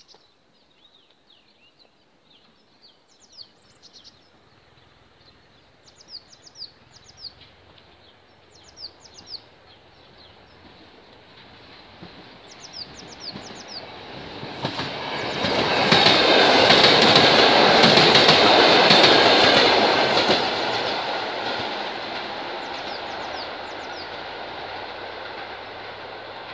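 A passenger electric multiple unit passes on electrified track. It builds from about halfway in, is loudest for a few seconds, then fades away. Birds chirp before it arrives.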